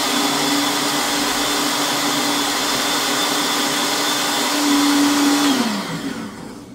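Countertop blender running steadily, puréeing cooked cranberry salsa. About five and a half seconds in it is switched off and the motor winds down, its pitch falling as it fades.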